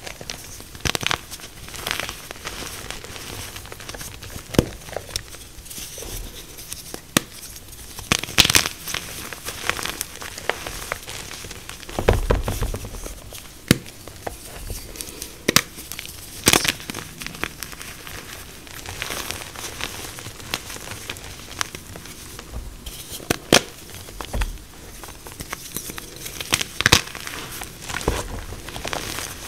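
Fresh blocks of BSN and MagKing gym chalk squeezed and crushed by hand in a bowl of chalk powder: soft crumbling with frequent sharp crunches and cracks at irregular intervals, and a heavier crunch about twelve seconds in.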